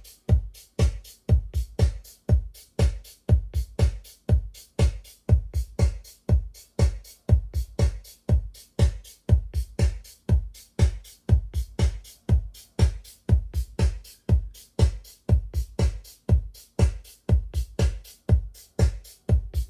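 Electronic dance music with a steady, deep kick-drum beat about twice a second, played through a 1972 TEAC AS-100 integrated amplifier and Akai ST-400 loudspeakers.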